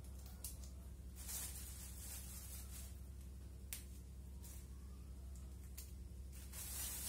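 Green beans being snapped by hand while they are trimmed: three sharp snaps spread out over several seconds, with soft rustles twice, over a steady low hum.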